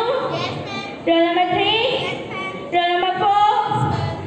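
Young girls singing a melody with long held notes in short phrases.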